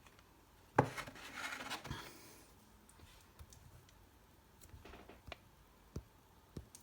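Handling a plastic Blu-ray case: a sharp click about a second in, then a brief rustling scrape, followed by a few light taps and clicks.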